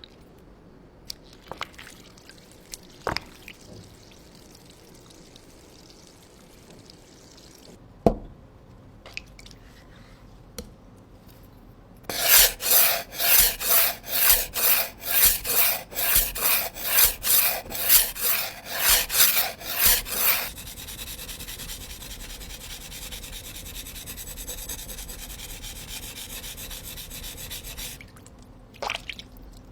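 Knife blade stroked back and forth on a sharpening stone, a rasping rub at about two strokes a second for some eight seconds, after a few scattered clicks and taps. Then a quieter, steady rubbing, with a couple of taps near the end.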